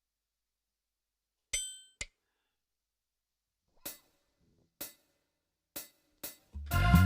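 Dangdut koplo band getting ready to play: a single ringing cymbal strike with a click after it, then four short sharp clicks spread about a second apart. The full band comes in with drums, bass and keyboard just before the end.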